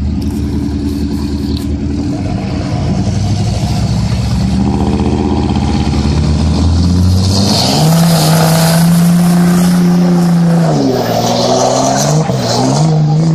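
Pickup truck engines straining against each other through a tow chain: running steadily at first, then revving hard about seven seconds in and holding at high revs under load. The revs dip briefly, then climb again near the end.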